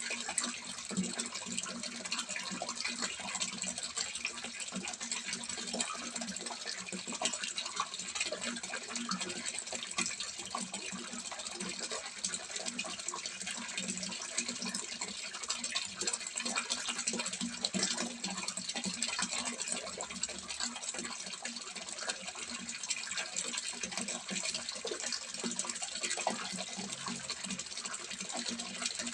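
Water from a small spout pouring and splashing into a fish pond, a steady continuous splashing.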